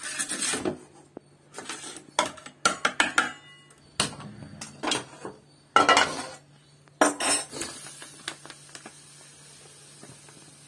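Steel kitchen vessels and utensils clattering: a string of sharp clinks and knocks as bowls and a metal slotted spoon are handled in a pan. The knocks fall over the first seven seconds, followed by a soft grainy hiss as semolina is poured from a packet into a cup.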